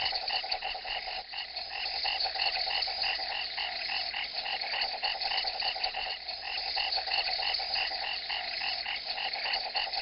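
A steady ambient chorus of rapid, evenly repeating animal calls, several pulses a second, that keeps one level throughout.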